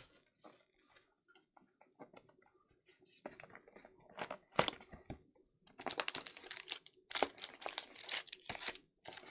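Cardboard trading-card hobby box being opened and its foil-wrapped card packs handled and pulled out: a few light clicks at first, then from about three seconds in, bursts of crinkling and rustling.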